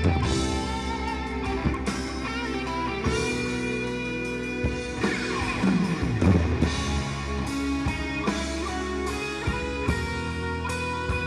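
Rock-style music with guitar and drums.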